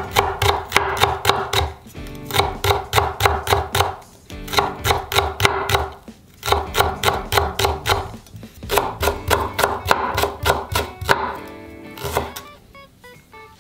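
A Tojiro Pro kitchen knife slicing a green onion into thin rings on a bamboo cutting board: rapid, even taps of the blade on the board, about seven a second, in runs of about two seconds with short pauses between. The slicing stops about a second before the end.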